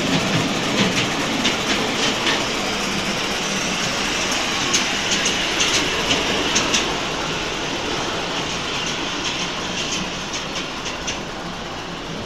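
A ride-on train running along its track, its wheels clicking over the rail joints, growing fainter near the end.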